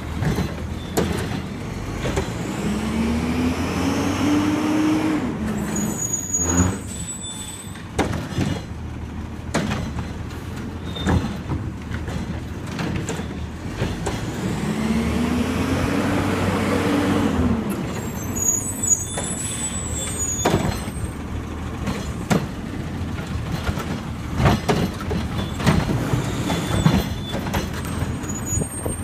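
Garbage truck with a Curotto-Can automated cart arm working: the engine revs up and falls back twice as the arm cycles, with clanks and knocks of carts and metal. After each rev comes a short hiss of air.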